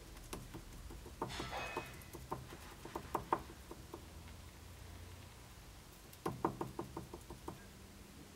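Three quick runs of light taps and knocks as a felt-covered wooden electro-etching pad is worked against a stenciled steel sword guard, with a short scraping rustle about a second in.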